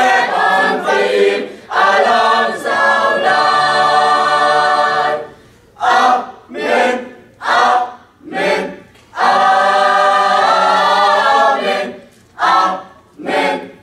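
Mixed choir of men and women singing unaccompanied: a long held chord, then a run of short separated notes, another long held chord, and short detached notes again near the end.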